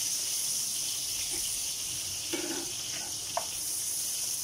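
Chopped onion sizzling in hot oil in a steel wok, a steady frying hiss, with a couple of faint knocks from a wooden spatula stirring it.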